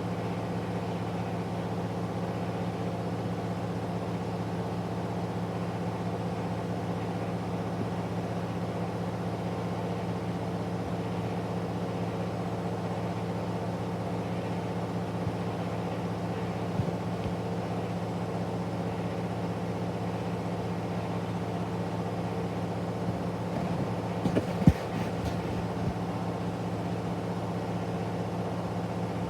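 Candy washing machine on its final spin at about 1000 rpm after balancing, a steady hum with a drum whine. A few knocks about 24 seconds in, one of them sharp and loud.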